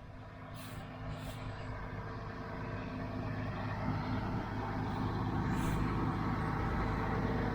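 International Harvester 886 six-cylinder diesel tractor running steadily under load while it drives a John Deere 348 small square baler, getting louder as the rig comes closer.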